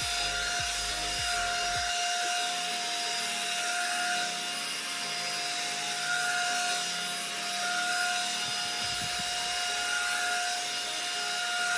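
One-step hot air brush (hair dryer brush) running on its medium setting: a steady motor whine with airflow hiss, and its bristles rubbing through hair in repeated strokes.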